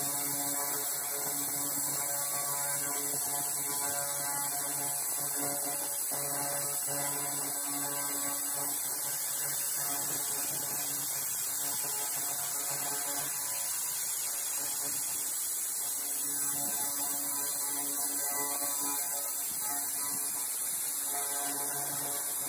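300 W pulse laser cleaner running: a steady electrical hum with a high hiss over it.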